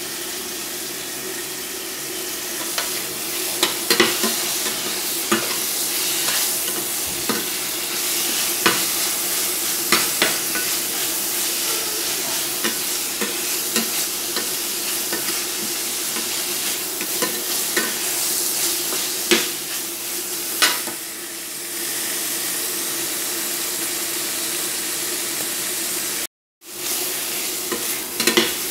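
Food sizzling in hot oil in a stainless steel frying pan, with a spatula stirring and scraping against the metal in irregular clicks and scrapes. The sound cuts out completely for a split second near the end.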